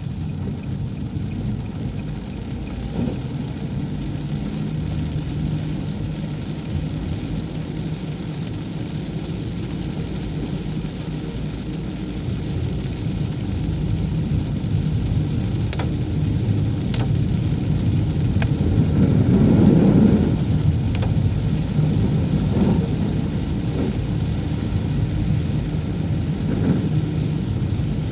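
Motor vehicle running on a rain-soaked road, a steady low engine and tyre rumble with rain in it. It grows louder for a few seconds about twenty seconds in.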